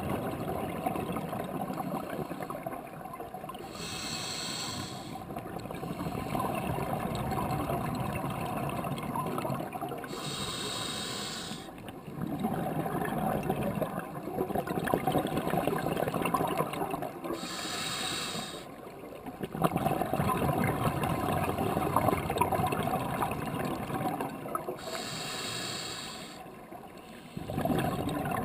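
Scuba breathing through a regulator, heard through an underwater camera housing. A short hiss of inhalation comes four times, about every seven seconds, and each is followed by a longer rumble of exhaled bubbles.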